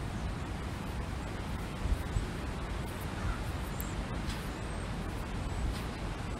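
Steady wind rushing over open ground, with a low, gusty rumble of wind buffeting the microphone. A faint distant bird call comes a little past the middle.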